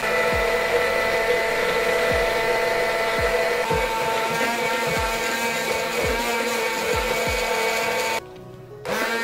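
Immersion (stick) blender running steadily in a tall plastic beaker, emulsifying an egg, parmesan and mustard sauce. It stops briefly near the end and starts again.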